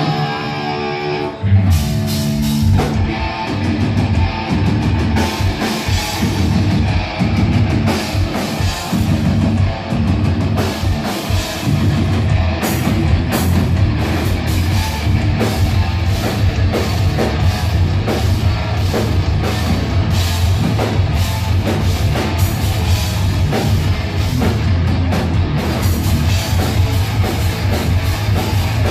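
Thrash metal band playing live: an electric guitar riff alone at first, then drum kit, bass and guitars come in together about a second and a half in and carry on as a fast, dense full-band groove.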